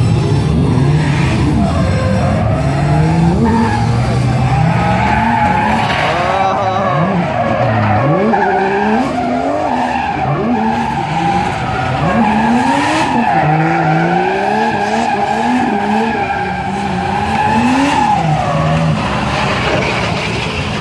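A drift car's engine revs in repeated rising surges and drops as it slides sideways. A long, steady tyre squeal runs from about six seconds in until a little before the end.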